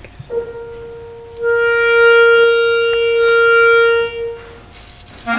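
Clarinet holding one long steady note, about a B-flat, that starts softly and swells fuller about a second in before stopping. Right at the end, quicker moving notes begin.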